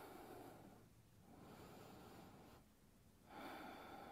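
Very faint, slow breathing, likely through the nose: a few soft breaths about a second or more each, with short pauses between.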